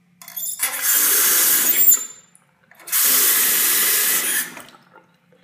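Two-handle lever faucet turned on and off twice, water running into the sink basin for about two seconds each time, with a short pause between.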